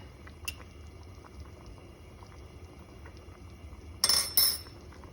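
Ground-meat tomato sauce bubbling and simmering faintly in the pan, with two brief clattering sounds about four seconds in.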